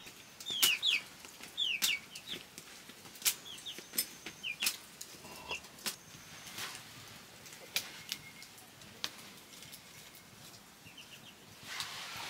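A domestic chicken giving repeated short, falling squawks and clucks, with sharp knocks and clicks in between.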